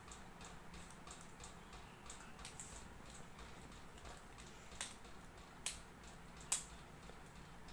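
Faint, steady ticking, a few ticks a second, with three sharper clicks a little under a second apart about halfway through.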